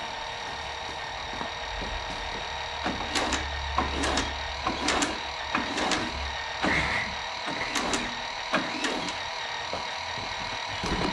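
Henderson four-cylinder motorcycle engine being turned over by hand through the rear wheel in fourth gear, unfired, to work primed oil through the main bearings before its first start. Irregular mechanical clicks and clacks come a few times a second from about three seconds in, over a steady faint whine.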